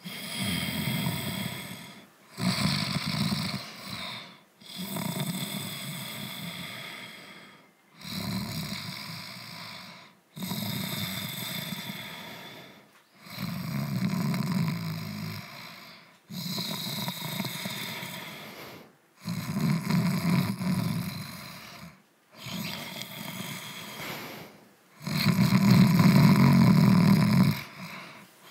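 Calico cat snoring in its sleep, one snore about every two to three seconds.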